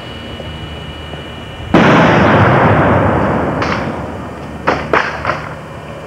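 One loud blast of a 'Pineapple' charge, which the uploader believes was a quarter stick of dynamite, going off about two seconds in and fading away over a couple of seconds. A few short sharp cracks follow. Before the blast there is a steady hiss with a thin high whine.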